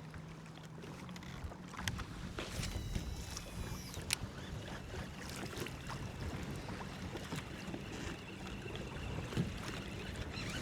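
Water lapping against a kayak hull in the wind, with scattered small clicks and knocks.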